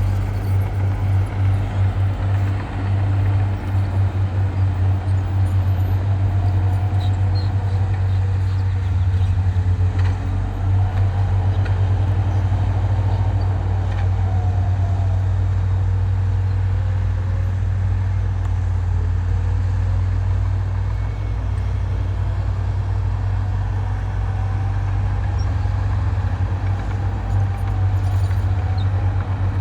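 Diesel engine of heavy earthmoving machinery running steadily, its deep rumble rising and falling slowly in pitch as it works under load.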